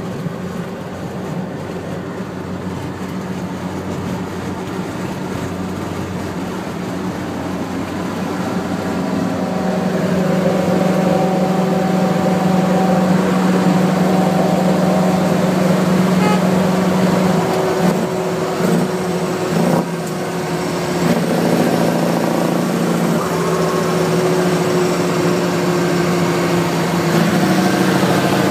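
Scania T164 580 truck's 16-litre V8 diesel running steadily at motorway speed, mixed with tyre and wind noise. It grows louder about a third of the way in and stays loud as the car draws alongside the truck.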